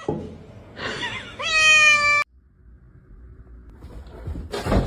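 Domestic cat meowing: one loud, drawn-out meow about a second in that cuts off abruptly. A brief noisy burst follows near the end.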